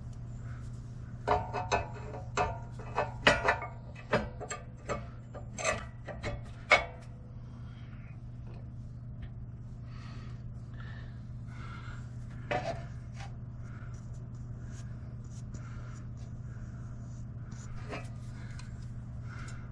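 Hand-tool work on metal parts: a quick run of sharp clicks and scrapes over the first several seconds, then single knocks a few seconds after the middle and near the end, over a steady low hum.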